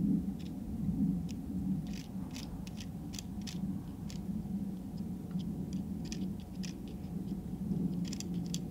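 A small hand tool scraping and picking packed snow out of garden-railway track at a switch, in short, irregular crunchy scrapes over a steady low hum.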